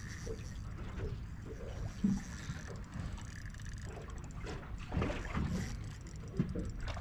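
Spinning reel being cranked and clicking, with a few knocks, while a strong hooked fish holds its ground and takes line, over a steady low rumble of wind and water around the boat.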